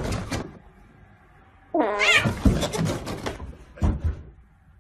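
Domestic cat giving one long drawn-out meow that rises and then falls in pitch. A short thump follows near the end.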